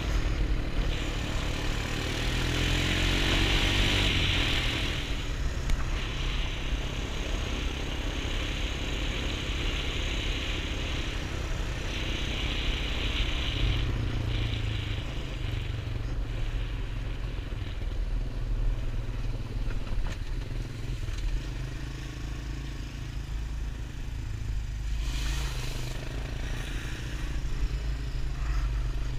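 ATV engine running as the quad is ridden along a dirt trail, its pitch rising and falling with the throttle. Stretches of rushing hiss come and go over the engine drone.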